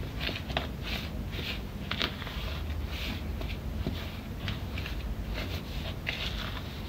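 Silicone spatula stirring dry flour and sugar in a plastic bowl: soft scraping strokes about twice a second as the dry ingredients for mandazi dough are mixed together.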